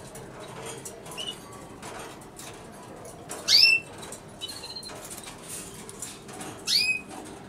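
A bird calling twice, about three seconds apart: short, loud calls that sweep sharply upward and level off. A few fainter chirps and scattered faint ticks sit over a low steady city background.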